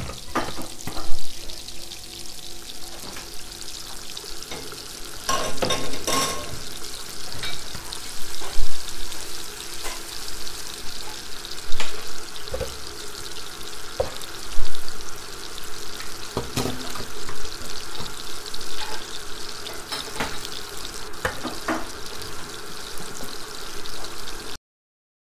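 Kitchen sounds: food sizzling steadily in a frying pan, with frequent knocks and clinks of a utensil stirring against the pan. The sound cuts off abruptly near the end.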